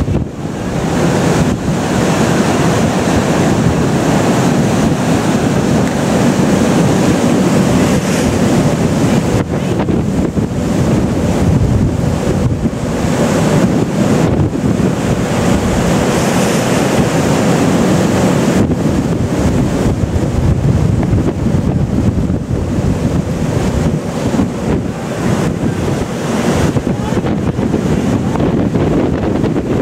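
Strong wind buffeting the microphone, a lot of wind noise over the rush of seas breaking and foaming along a square-rigged sailing ship's hull as it runs before a gale. Steady and loud, with a few brief lulls.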